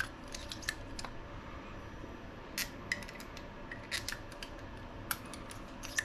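Light metallic clicks and taps, about a dozen spread unevenly, from handling small RC buggy shock parts: the steel shafts and pistons going into the metal shock bodies and the shocks being set down on the bench.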